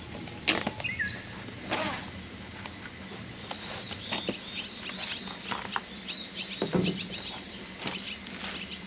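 Rubber boots scuffing and stepping on concrete as they are pulled on and walked in, a few short knocks. Through the middle, a rapid series of high chirping calls sounds in the background.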